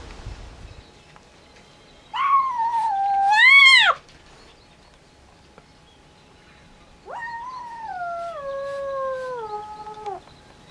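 Cat yowling: two long, drawn-out calls, the first about two seconds in with a rise in pitch just before it breaks off, the second about seven seconds in, sliding down in pitch in steps over three seconds.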